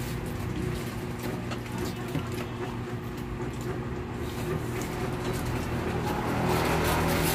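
Eating at a table: light clicks of forks and plates and soft chewing, over a steady low hum that grows a little louder near the end.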